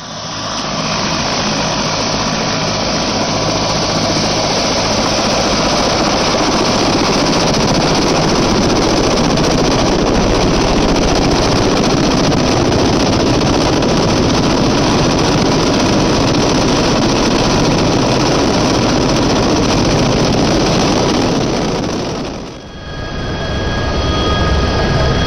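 A helicopter running close by on the ground: a loud, steady roar of turbine and rotor, with the rotor wash buffeting the microphone. After a cut near the end, the helicopter is heard from inside its cabin as a steady drone with high, even whining tones.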